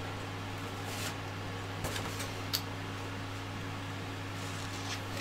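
Steady low hum of room noise, like a fan or mains hum, with a few faint light ticks.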